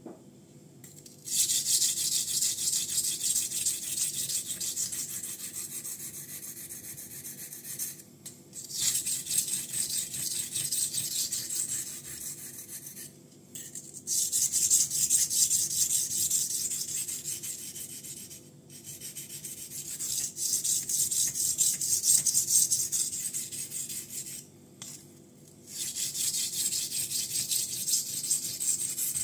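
Steel knife blade (Ganzo Firebird F759M, 440C steel) being stroked back and forth over a wet Binsui 1000-grit Japanese natural whetstone: a rasping scrape of rapid strokes. It starts about a second in and comes in five spells with short pauses between them.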